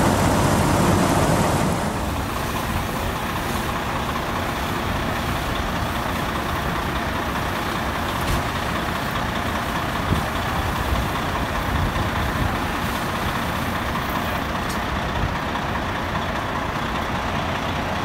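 Fire truck diesel engine running steadily, a continuous mechanical rumble with hiss, a little louder for the first two seconds.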